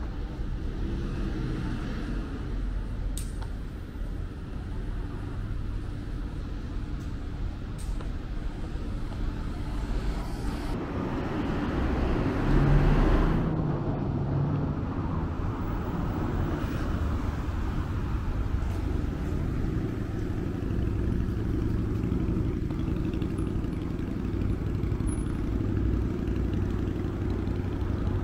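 Street ambience of road traffic: a steady low hum of vehicles, with one vehicle passing close and loud about halfway through.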